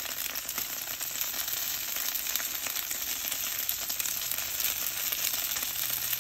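Thick-cut bacon wrapped around stuffed jalapeños sizzling steadily on a hot Blackstone flat-top griddle, with a fine crackle of spattering fat.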